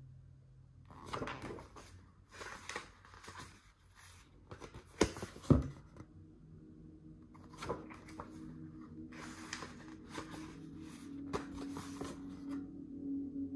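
Pages of a large photo book being turned by hand: paper rustling and flapping in short bursts, with two sharp page snaps about five seconds in.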